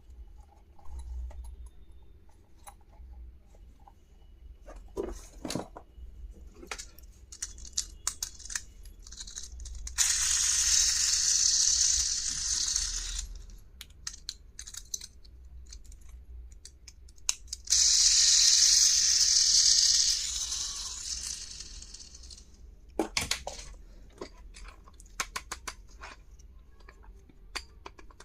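Stationery packaging being handled: small scattered clicks and taps, and twice a long, steady tearing hiss of about three seconds each, packaging being torn or peeled open, which is the loudest sound.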